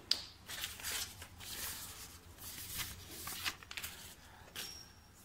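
Plastic bottle and cap handled on a tabletop: a sharp click near the start, then irregular rustling and scraping.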